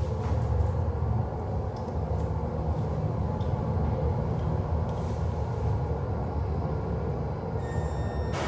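Elevator cab in motion: a steady low rumble, with a short high beep near the end.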